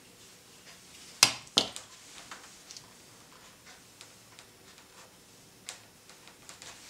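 Two sharp clicks about a second in, a moment apart, then light scattered ticks from handling a motorcycle helmet and small plastic headset parts.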